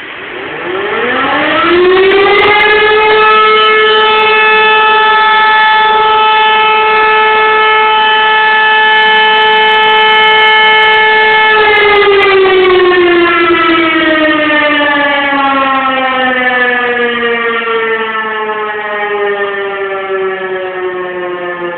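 Fire station siren winding up over about two seconds to one loud, steady wail, held for about ten seconds, then slowly winding down, its pitch still falling at the end. It is sounded in mourning for a fallen firefighter as his funeral procession passes.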